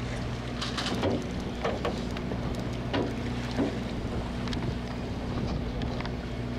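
Steady low drone of a deep-sea party boat's engine, with wind buffeting the microphone and a few short knocks and splashes scattered through.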